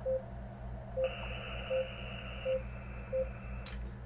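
Five short, low beeps, about one every 0.7 s, from the Xiegu X5105 transceiver as its MODE button is pressed repeatedly to step through operating modes to USB. About a second in, a steady high tone comes in from the radio. It drops slightly in pitch midway and stops just before the end, followed by a short click.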